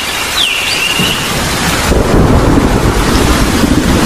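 Steady heavy rain, with a low rumble of thunder swelling in about two seconds in. Near the start a brief whistle-like tone falls in pitch and then holds.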